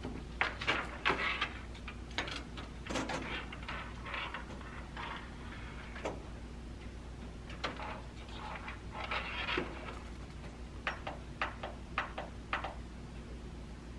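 Sheets of paper rustling as they are handled and fed into an inkjet printer's rear paper tray, followed near the end by a quick run of short sharp clicks.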